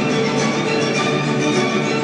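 Orchestral music playing steadily, with many sustained instrument tones.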